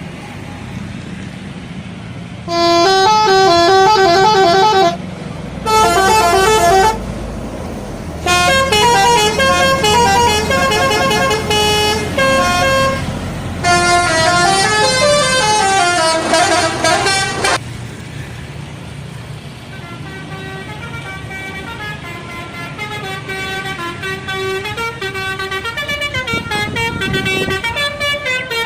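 Indonesian bus telolet horn, a multi-tone air horn, playing short melodic phrases of stepping tones in four loud bursts over the first two-thirds, then a fainter run of similar horn melody near the end. A low bus engine and traffic rumble runs underneath.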